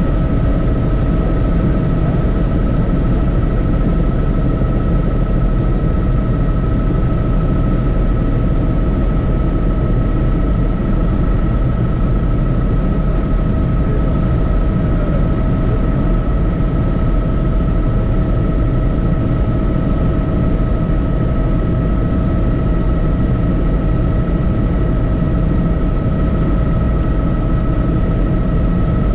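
Helicopter in flight: a steady, unbroken drone of rotor and engine with a constant whine on top.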